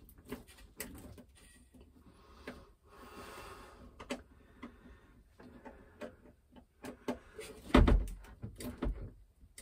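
Faint clicks and scrapes of a screwdriver and solar cable worked into the terminal block of a Victron SmartSolar MPPT charge controller, fastening the wiring by feel. A few heavier knocks come near the end.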